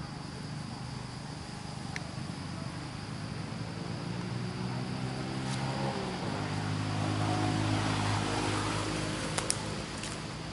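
A motor vehicle engine running, growing louder to a peak about eight seconds in and then easing off, its pitch stepping down about six seconds in. A steady high insect drone runs underneath, with a couple of sharp clicks near the end.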